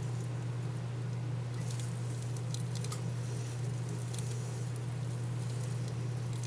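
Steady low hum of room equipment, with faint, scattered light ticks and rustles over it.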